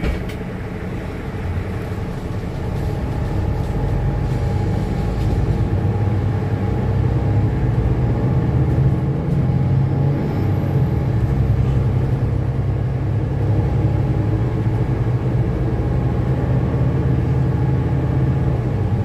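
Mercedes-Benz Citaro bus heard from inside the passenger cabin while under way: a steady low engine and drivetrain drone that grows louder about four seconds in, then holds steady.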